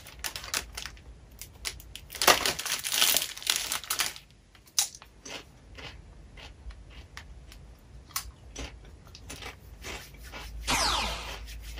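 A Doritos bag crinkling as a hand rummages in it, then scattered crunches of a tortilla chip being bitten and chewed. Hands are brushed together near the end.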